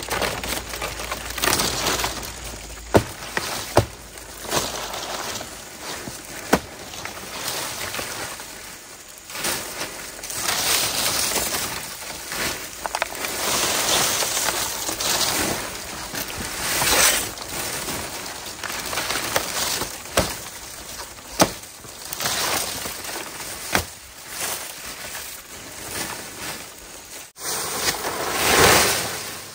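Large fan-palm fronds rustling and swishing as they are gathered, dragged and stacked in a pile, in waves that swell and fade, with sharp snaps of stiff stems here and there.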